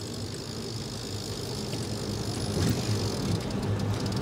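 Traffic and road noise heard from a moving pedicab, with a steady low hum underneath, slowly growing louder.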